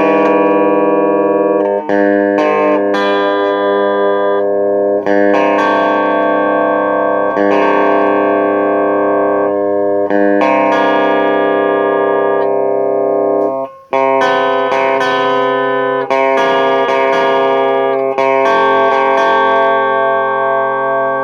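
Guitar played through effects with distortion, chords struck every one to three seconds and left ringing on, with a short break about fourteen seconds in.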